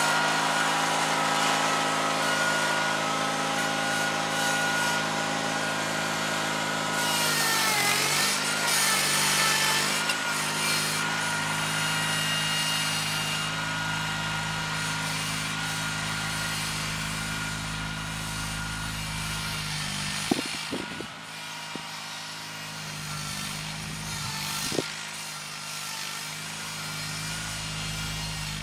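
John Deere 316 garden tractor's twin-cylinder engine running steadily while it pulls a moldboard plow. Its pitch sags about eight seconds in as the plow loads it, then recovers, and the engine grows slowly quieter as the tractor moves away. A few short knocks come near the end.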